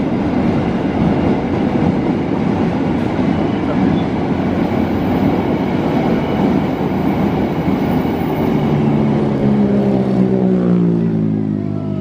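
Train of fuel tank wagons rolling along the rails, a steady rumble and clatter of wheels on track. From about two-thirds of the way in, a droning engine note slides down in pitch.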